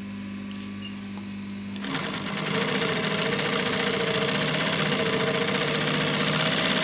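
Twin-needle industrial lockstitch sewing machine sewing a test seam to check the balance of needle and bobbin thread tension. A steady motor hum, then about two seconds in the machine starts stitching and runs at an even speed.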